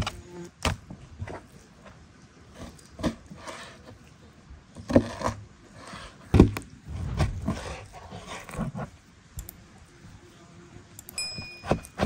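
Irregular knocks, thunks and clinks of food preparation and cooking utensils being handled, with one short ringing clink near the end.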